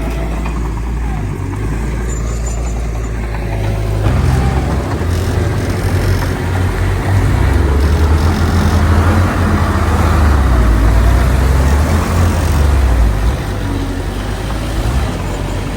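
Heavy diesel engine of earth-moving machinery working under load with a deep, steady rumble. It gets louder about four seconds in, is strongest in the middle, and eases off near the end.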